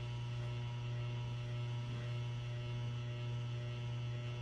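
Steady electrical mains hum: a low, unchanging buzz with fainter higher tones stacked above it.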